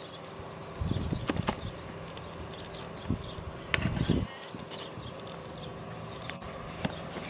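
A flying insect buzzing past the microphone twice, briefly, about a second in and again about four seconds in, over a quiet outdoor background with a few faint clicks.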